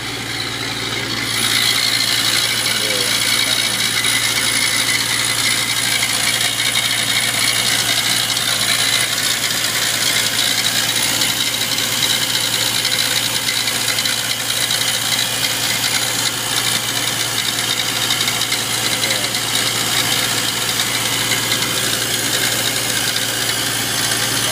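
Porsche 993 air-cooled flat-six engine running at idle, with a steady mechanical funny sound from the engine cooling fan and its belt drive, heard after a replacement alternator belt was fitted. It grows louder about a second in as the microphone comes close to the fan, then holds steady.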